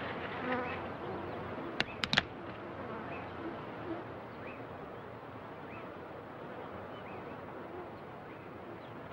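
Insects buzzing steadily, with three sharp clicks about two seconds in.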